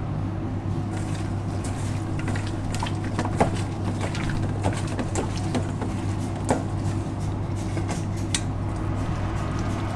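Raw chicken wings being tossed by gloved hands in a stainless steel bowl, giving a handful of scattered knocks and clinks against the metal. A steady low hum runs underneath.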